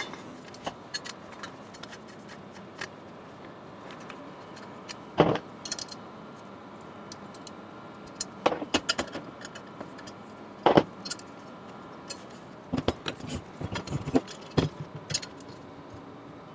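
Aluminium 2020 extrusion lengths and their bolts clinking and knocking as they are handled and fitted together into a frame corner, in scattered sharp clicks with a few louder knocks spread through.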